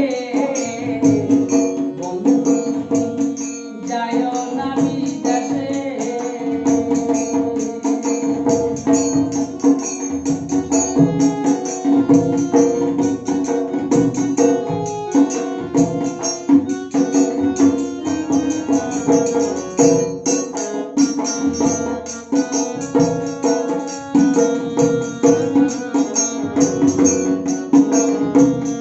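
Instrumental break in a Bengali Baul folk song: a two-headed barrel drum (dhol) beaten in a steady, quick rhythm over a held melody from an accompanying instrument.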